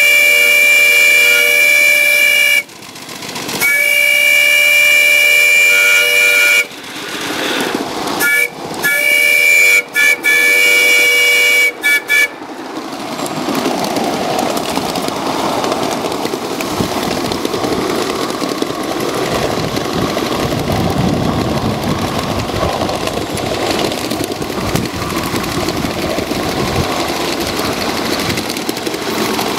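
The steam whistle of a live-steam model locomotive sounds several tones together. It gives two long blasts, then a few shorter toots, and stops about twelve seconds in. After that comes the steady running noise of the moving locomotive.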